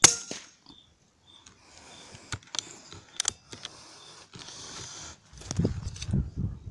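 A single sharp shot from a P15 compressed-air rifle, followed by a few seconds of rustling and scattered clicks as the rifle is handled, with low thumps near the end.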